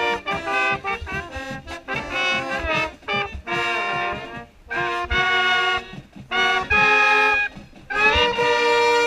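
Marching band brass with a mellophone up close, playing a passage of short, separated notes that gives way to longer held notes, then a long sustained chord from about eight seconds in.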